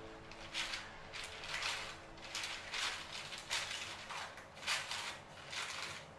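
Parchment paper crinkling and rustling as gloved hands press and stretch soft bread dough flat across a metal tray, in short irregular scrapes about twice a second.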